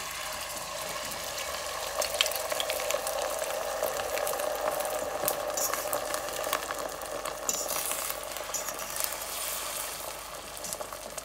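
Beaten eggs frying in hot oil in a stainless steel pot, a steady sizzle, with a fork stirring them and clicking now and then against the pot.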